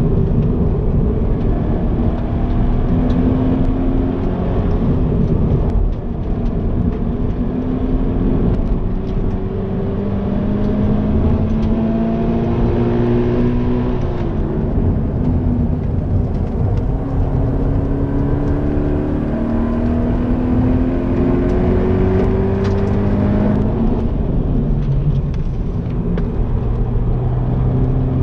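Stock Toyota GT86's 2.0-litre FA20 flat-four engine heard from inside the cabin, pulling hard on track. The revs climb again and again and drop back at each gear change and under braking.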